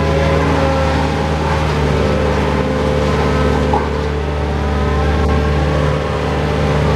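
Bobcat skid-steer loader's diesel engine running steadily under load as the machine is driven, heard from the operator's seat as a loud drone whose pitch shifts a little about two seconds in.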